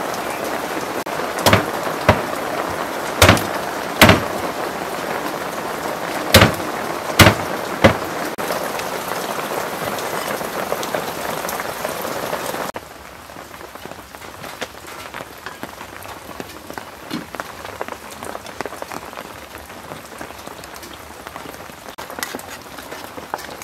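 Heavy rain falling steadily, with seven sharp knocks in the first eight seconds. About halfway it drops suddenly to quieter rain with light patter.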